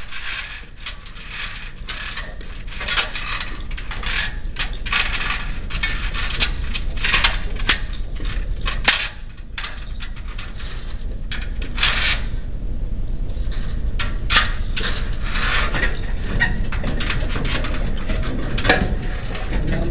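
Irregular metallic clicks and knocks of hand tools working on the metal hardware of an overhead door.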